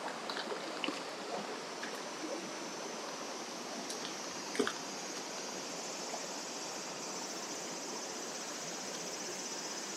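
Shallow mountain stream running steadily over rocks and riffles, with a few light clicks, the sharpest about halfway through. From about halfway a faint, high, steady insect buzz comes in over the water.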